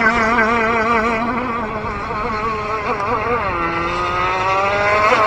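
Gas-powered RC boat's two-stroke engine running at speed on the water, its pitch wavering as the boat circles. About three seconds in the engine note drops sharply, then climbs slowly and surges back up near the end as the throttle comes back on; the engine is on a rough, near-stock carburettor tune.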